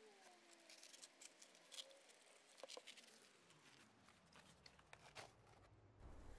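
Faint scattered clicks and crackles of an old banana seat being handled: the torn vinyl cover and rusty steel seat pans rustling and ticking as the separated pans are lifted apart.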